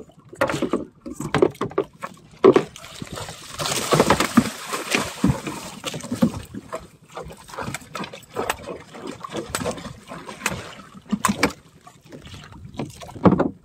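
Water splashing and repeated sharp knocks as a king mackerel is hauled alongside a small wooden outrigger boat and struck with a wooden club. The splashing is heaviest a few seconds in.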